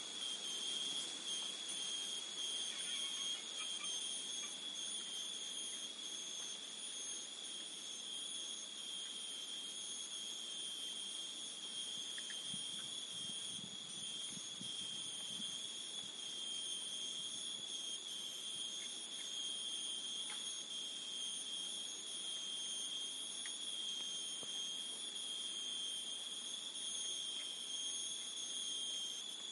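Chorus of tropical forest insects: several high-pitched tones held steadily without a break. A brief low rumble comes in about twelve seconds in.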